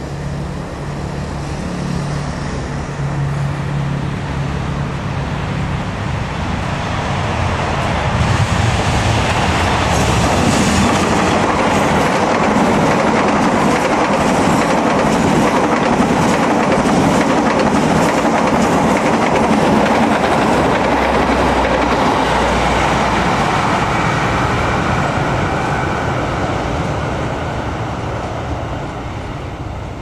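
A KAI diesel-electric locomotive approaches with its engine running steadily. Its passenger coaches then roll past, the wheels clattering rhythmically over the rail joints, and the sound fades near the end. No horn is sounded.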